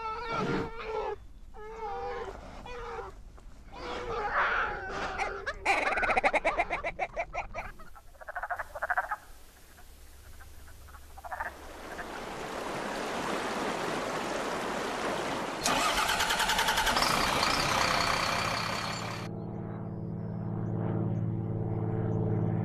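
A sequence of six short recordings one after another: bear cubs crying, ptarmigans calling, a chorus of wood frogs clucking, flowing water, a bus engine starting, and a propeller plane's motor ending in a low steady drone.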